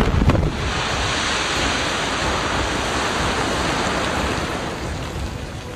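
Quarry rock-face blast: a loud, steady roar of the blast and of shattered rock and debris coming down, loudest at the start and easing off a little near the end.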